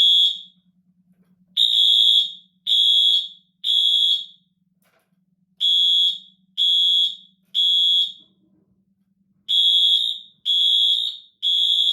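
Two Wheelock AS fire-alarm horn strobes sounding together. They give a high, harsh horn tone in the three-pulse temporal pattern: three blasts of about half a second, a pause of about a second and a half, then three more. It is way too loud.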